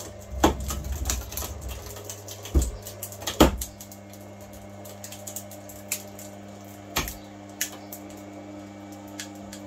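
Electric screw-drive actuator motor running under load with a steady hum, dragging copper windings out of a motor stator. Sharp clicks and cracks come at irregular moments, the loudest in the first four seconds, as the winding wire and the pulling bolt take the strain.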